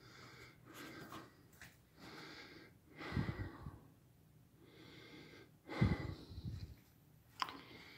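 A man breathing heavily: a series of audible breaths, roughly one a second, two of them louder, with a short click near the end.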